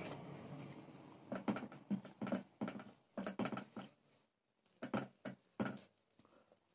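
Close-up eating sounds: a string of short, wet mouth smacks and chews in two clusters with a pause in between.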